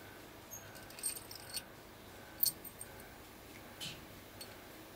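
A few light metallic clinks and taps as cylinder-head bolts and hand tools are handled on a diesel engine's cylinder head, the clearest about one, one and a half and two and a half seconds in.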